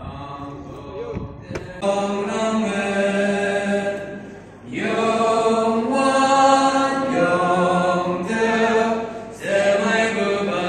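Church congregation singing a hymn together in long, held notes, starting about two seconds in, with a brief break between phrases partway through.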